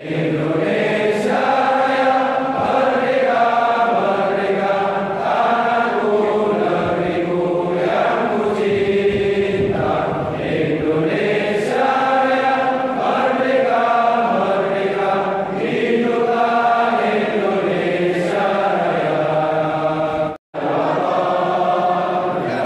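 A large group of men singing a song together in unison, in long held notes that move step by step. The singing cuts out for an instant near the end and resumes.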